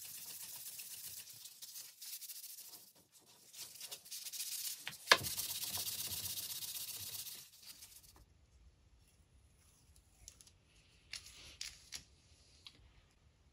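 Sanding sponge rubbing over a wooden knife handle: a steady scratchy hiss in two spells with a short break between, and one sharp click about five seconds in. After about eight seconds it goes quiet apart from a few light taps.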